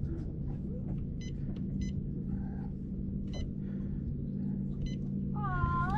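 Humminbird fish finder beeping with each button press, four short electronic beeps spaced a second or so apart, over a steady low hum.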